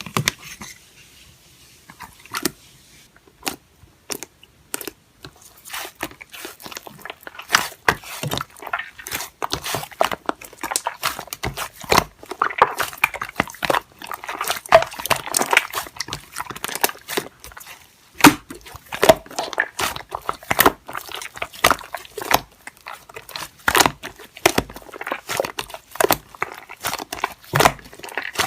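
Slime being squished and poked by hand, giving a run of sharp clicks and crackles, sparse at first and then thick and continuous from about five seconds in.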